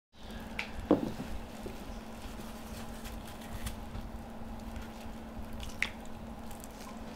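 Raw chicken breast fillets being handled with gloved hands in a ceramic bowl: soft wet squishes, with one sharp knock about a second in and a few light ticks. A steady low hum runs underneath.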